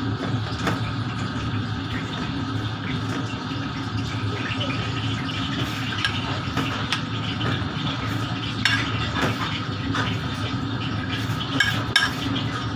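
Hands kneading and squishing a soft ricotta, spinach and mushroom stuffing in a ceramic plate, with scattered light clicks and taps against the plate. A steady hum of kitchen equipment runs underneath.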